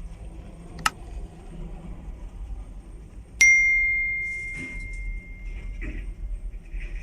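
A sharp metallic strike about a third of the way in, ringing on as one clear tone that fades over a couple of seconds, over the low steady rumble of the wheel excavator's diesel engine. A shorter sharp click comes just under a second in.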